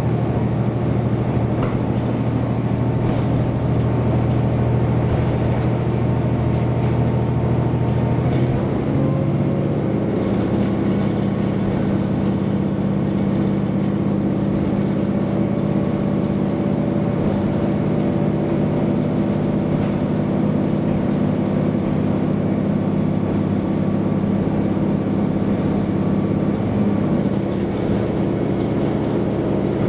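Diesel railcar's engine running steadily under way, its pitch stepping up about eight seconds in and shifting again near the end.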